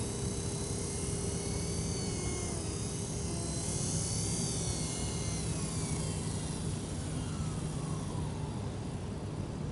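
Radio-controlled model helicopter in flight: a high motor and rotor whine that slides up and down in pitch, then falls and fades about eight seconds in.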